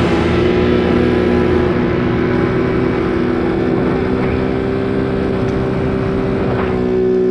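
150cc GY6 single-cylinder four-stroke engine in a Power Wheels jeep running at a steady speed, its pitch holding level throughout.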